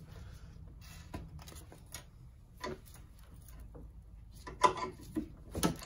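Light clicks and taps of hand tools and small metal parts being handled while a mountain-bike rear shock is taken apart. The taps are irregular, with a few sharper, louder clinks near the end.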